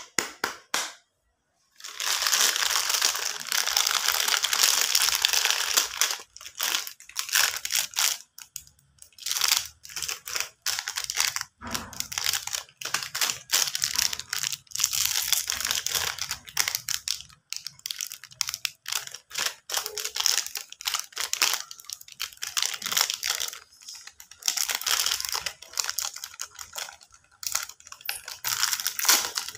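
Plastic lollipop wrappers crinkling and tearing as they are handled and pulled open, in quick runs with short pauses, starting about two seconds in.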